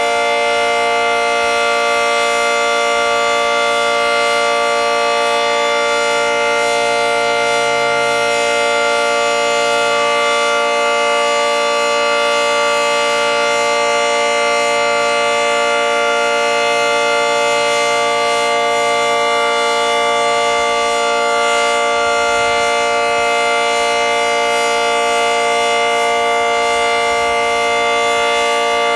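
Federal Signal 2T22 dual-tone outdoor warning siren sounding a steady chord at full pitch during a scheduled monthly test, loud and unchanging in pitch and level.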